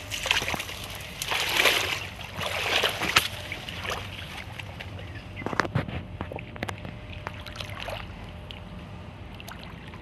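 River water sloshing and splashing around people wading chest-deep, in several surging bursts over the first three seconds, then a quieter lapping wash with a few sharp knocks about halfway through.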